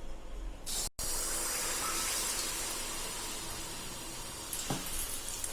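Malpua batter sizzling in hot oil: a steady frying hiss that starts about a second in, with a light knock of a utensil on the pan near the end.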